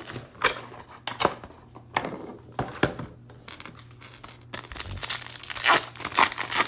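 Trading-card pack wrappers crinkling and tearing as baseball card packs are handled and ripped open, loudest near the end.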